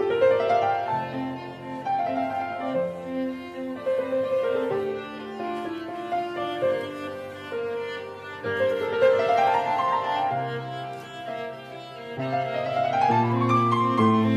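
Background instrumental music of bowed strings and piano, with rising melodic runs near the start, about nine seconds in, and again near the end.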